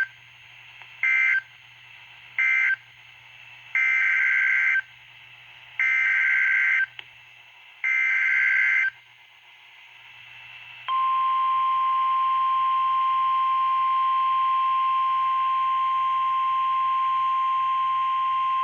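Emergency Alert System tones from NOAA Weather Radio, heard through a radio scanner. First come the last two of three short end-of-message data bursts, then three harsh two-tone data bursts of about a second each (the SAME header of the next alert). About eleven seconds in, the steady single-pitch weather radio warning alarm tone begins and holds.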